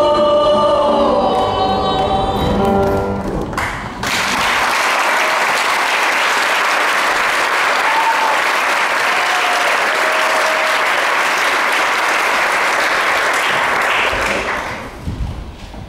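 A group of singers holds the final note of a song, which cuts off about three and a half seconds in; an audience then applauds for about ten seconds, with a few short cheers, before the clapping dies away near the end.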